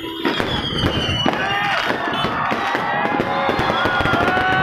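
Fireworks crackling and popping in rapid succession. Whistles slide down in pitch in the first second, and a steady held tone sets in about three seconds in.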